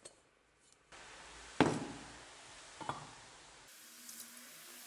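A rusty iron axe head knocked down hard once, then a lighter knock about a second later. Near the end, rust-remover liquid is poured into a pan over it with a faint steady hiss.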